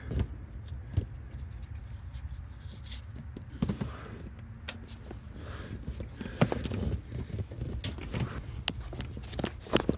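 Parts and tools being handled under the hood: scattered clicks, knocks and scrapes as components are fitted back in place, over a steady low hum.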